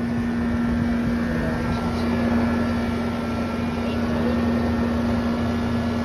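Steady hum of a running outdoor air-conditioning or heat-pump condensing unit: a constant low tone with a fainter high whine above it.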